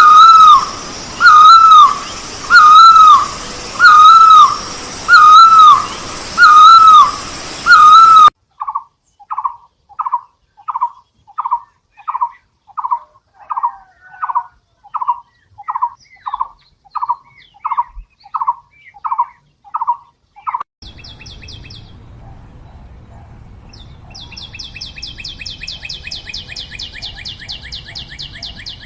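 Bird calls: a loud run of arched, whistled notes repeated just under once a second. It is followed by a quieter, faster run of short notes. After about twenty seconds the sound changes abruptly to a rapid, high trill.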